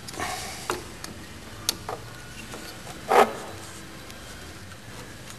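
A few light plastic clicks and knocks, then one louder knock about three seconds in: a go-kart CDI module being worked into its tight-fitting plastic holder.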